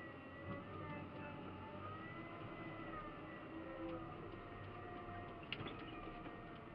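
Caterpillar 966K wheel loader heard from inside its cab: the diesel engine and hydraulics run steadily, their pitch rising and falling as the bucket is worked. A few sharp clicks come a little past halfway.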